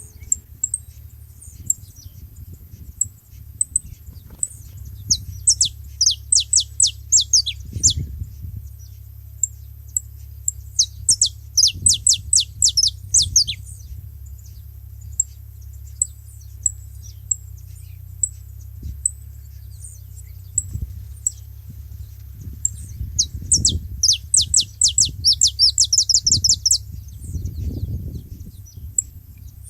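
Saffron finches calling: sharp, high chip notes repeated throughout, broken three times by rapid runs of quick descending notes.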